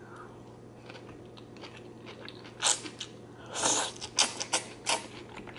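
Close-miked eating sounds of a mouthful of zucchini noodles in creamy Alfredo sauce: faint at first, then a slurp and a run of wet chewing smacks in the second half.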